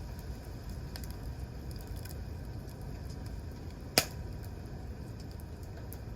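Wood campfire burning with a steady low rumble and scattered faint crackles, and one sharp loud pop about four seconds in.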